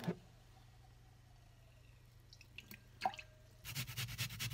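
A metal clink about three seconds in, then quick rhythmic scraping strokes, several a second, as food is rubbed back and forth over a metal rasp grater held across a glass bowl.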